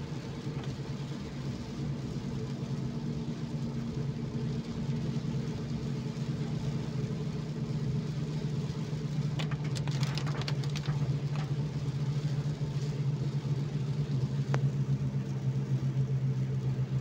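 Car's engine running with a steady low hum under the hiss of tyres on a wet road, heard from inside the cabin in rain. A few short clicks come about ten seconds in and again a few seconds later.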